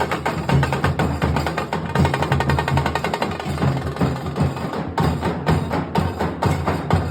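Nasik dhol ensemble drumming: deep dhol beats under rapid, sharp high strokes in a fast, continuous rhythm.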